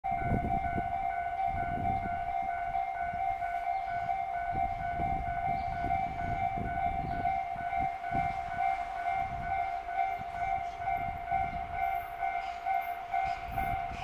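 Railway level-crossing alarm ringing on and on with a steady, pulsing tone over a low rumble. Near the end the approaching Tobu 9000 series electric train adds faint rhythmic ticking from its wheels.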